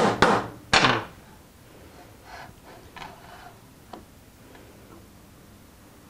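A small hammer drives a nail into wood with quick blows, about four a second. The last three blows fall in the first second and the hammering then stops. A few faint clicks and rustles follow.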